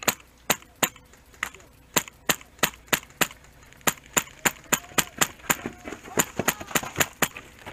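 An HPA-powered airsoft rifle (Echo1 SR16 with a Wolverine SMP drop-in kit) firing about twenty sharp shots in quick semi-automatic strings, roughly three a second, with brief pauses between strings.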